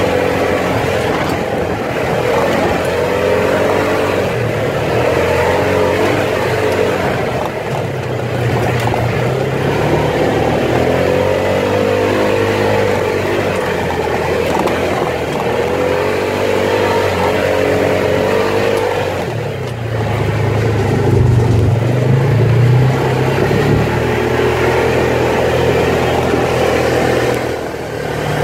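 Side-by-side off-road vehicle's engine running under way on a dirt trail, its pitch rising and falling with the throttle over a steady rush of tyre and wind noise. It is loudest a little past the middle.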